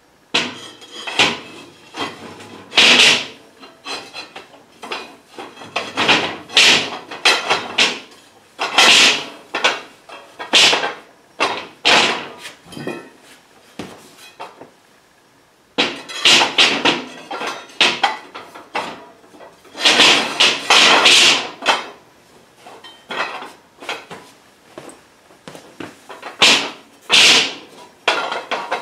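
Laser-cut steel plate pieces clanking and scraping as tab-and-slot cross members are fitted into the slots of a steel welding-table top. Irregular metallic knocks and rattles come in clusters, with a quieter gap about halfway through.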